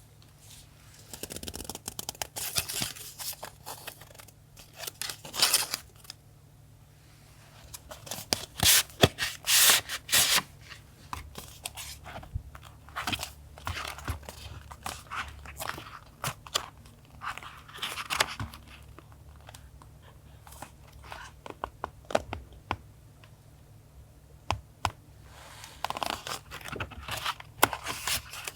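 Close-up paper and packaging handling: irregular rustling, tearing and snipping with sharp little clicks, loudest in a cluster about nine to ten seconds in.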